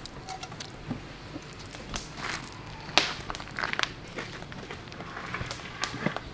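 Scattered light clicks and knocks of kitchen handling, with a sharper knock about three seconds in.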